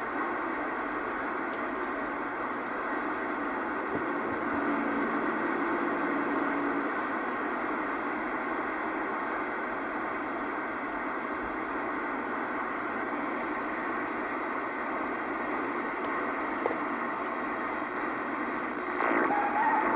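CB radio receiver hissing with steady band noise and static between transmissions. A faint steady tone runs for a couple of seconds about five seconds in, and a rising whistle comes near the end.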